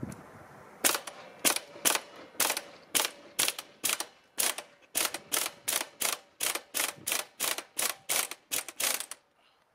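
Half-inch impact wrench hammering on the countershaft sprocket nut of a Yamaha RZ350 in short bursts, about two a second, stopping near the end. The nut is held with thread locker.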